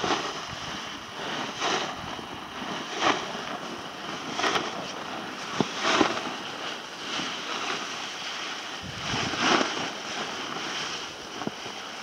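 Steady outdoor rushing noise with about five brief louder surges.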